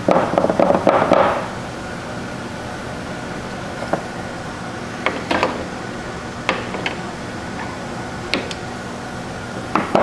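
Handling noise, then scattered sharp clicks and taps, about eight of them, over a steady hum with a faint thin whine.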